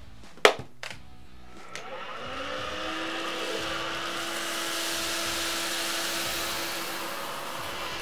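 Miele Triflex HX1 Pro cordless stick vacuum: a sharp click of its handle's power-setting switch about half a second in, a couple of lighter clicks, then the motor spins up with a rising whine at about two seconds and runs steadily on a higher suction setting as it is pushed over a thick rug.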